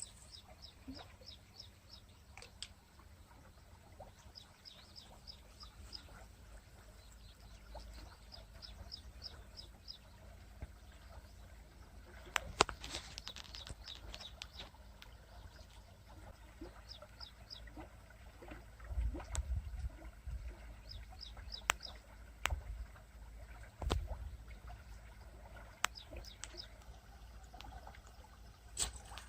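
A small bird calling in quick runs of five or six short high chirps, repeated several times, over a low rumble with a few sharp knocks.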